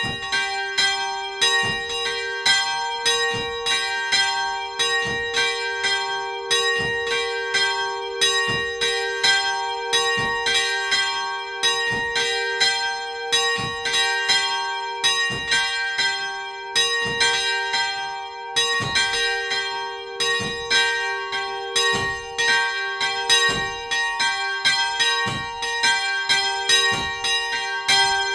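Two Paccard church bells cast in 1994, tuned to G and B-flat, swinging together in a continuous peal. Their strikes come over and over in an uneven, overlapping rhythm, and each bell's hum rings on steadily between the strikes.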